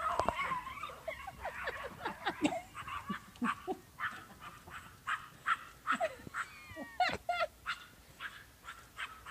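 Small Yorkie-type puppies yipping and barking in short, high calls, a little over one a second, with a few falling yelps about two-thirds through.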